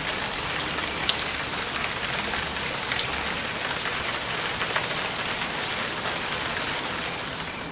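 Steady rain falling on shrubs and ground, an even hiss with a few sharper ticks.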